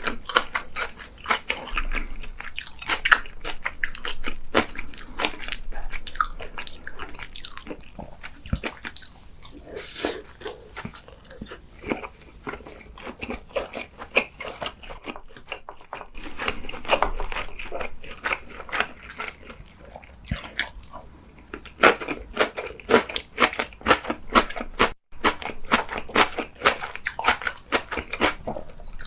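A person biting and chewing food: a continuous, irregular run of small crunchy clicks and wet mouth sounds.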